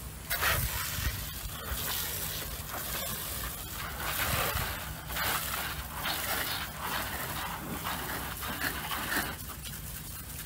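Pressure-washer lance spraying water onto a car's bodywork: an uneven hiss that starts just after the beginning, surges and eases, and stops about a second before the end.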